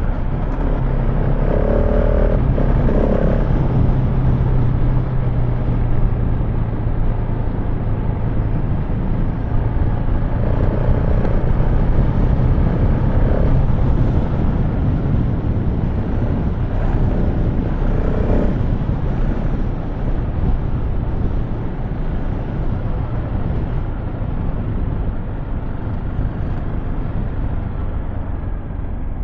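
Motorcycle engine running as it is ridden along off-road. Its note holds steady through roughly the first half, then becomes less distinct under a constant rush of wind and riding noise.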